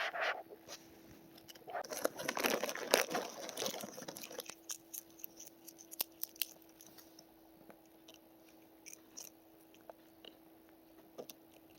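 Potato chips being crunched and chewed: a dense run of crisp crunches about two to four seconds in, then scattered faint clicks, over a faint steady hum.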